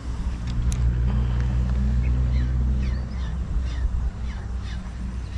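A motor engine running with a steady low hum, loudest over the first three seconds and then easing off. From about halfway, a series of short, high falling chirps.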